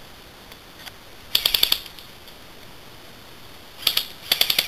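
Airsoft gun firing three short rapid bursts of sharp clicky shots, about fifteen a second: one about a second and a half in, a brief one just before four seconds, and another near the end.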